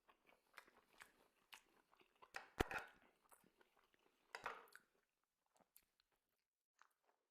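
Faint chewing and biting mouth sounds of someone eating, with small crackles and a sharp click about two and a half seconds in.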